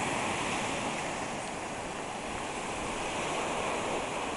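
Sea surf: waves breaking over low shoreline rocks and washing up the sand, a steady rushing wash.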